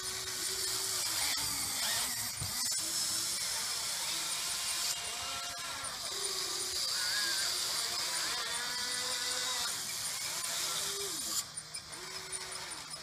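Electric motors of a Huina 580 RC excavator whining as the boom, arm and bucket move, the pitch gliding up and down in short runs as each motor starts and stops. The motor noise cuts off suddenly near the end.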